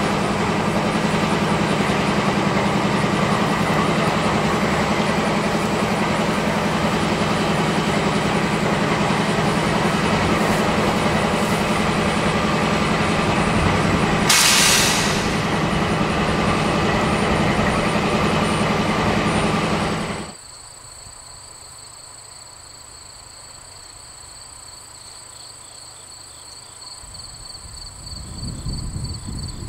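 GE B32-8 diesel locomotive idling, a steady engine drone with a short hiss of air about halfway through. The sound then cuts sharply to a much quieter open scene with a steady high trill, and a low rumble building near the end.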